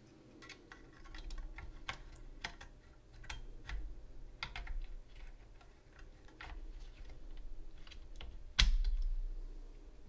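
Small clicks and taps of a DDR5 SO-DIMM laptop RAM module being fitted into its slot on a mini PC motherboard, with handling rustle, and one louder snap near the end as the module is pressed down into its retaining clips.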